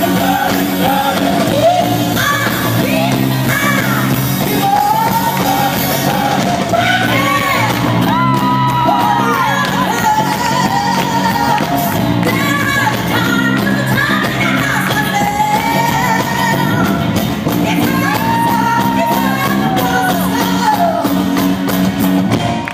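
A live band plays with drums and electric guitar while a woman sings lead, belting and holding long notes, in a large hall.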